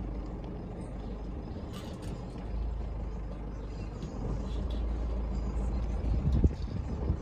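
Low, steady rumble of an idling vehicle engine, with a few short knocks and rattles about two seconds in and again near the end.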